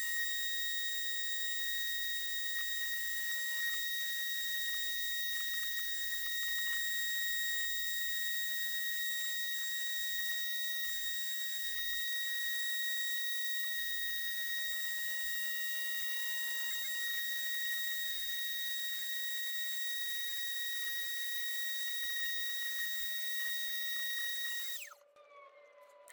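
Small CNC router spindle running with a steady high-pitched whine while milling channels in acrylic. About 25 seconds in it spins down, the whine falling in pitch and fading out.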